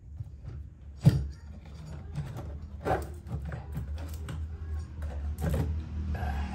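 Knocks, scrapes and rattles of a powered floor monitor's amplifier panel being worked loose and lifted out of the speaker cabinet. A sharp knock about a second in is the loudest, with smaller clunks near three seconds and five and a half seconds. A low steady hum sits underneath.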